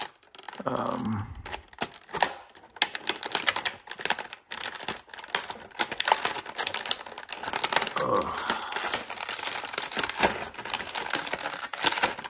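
Plastic action-figure packaging being handled, a dense run of clicks, snaps and crinkles as the figure is worked loose from its tray.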